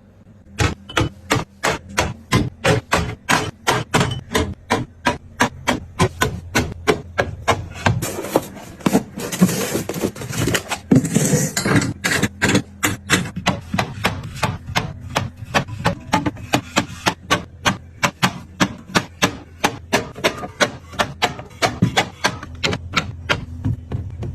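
Hard items being set down one after another into a container while restocking: a steady run of sharp clacks at about three a second, with a stretch of rustling about halfway through.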